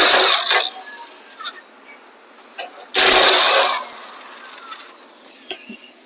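Corded electric power tool, used as an impact wrench on the nuts of a baler's reel assembly, running in two short bursts of under a second each, about three seconds apart, with a few light metallic clicks between them.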